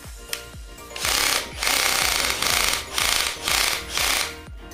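Bosch GSR 120-LI 12 V cordless drill/driver run unloaded in about five short trigger bursts. It is running smoothly with its gearbox reassembled and greased, without the gear noise it had before the repair.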